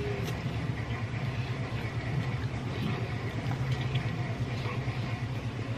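A steady low hum throughout, with faint wet clicks and smacks of a man eating roast chicken with his fingers and sucking them clean.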